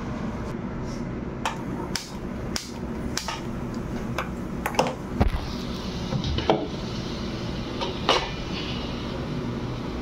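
Scattered metallic clanks and clicks of an aluminium pressure cooker being lidded and set down on a gas stove's burner grate: about ten separate knocks, the loudest near the middle.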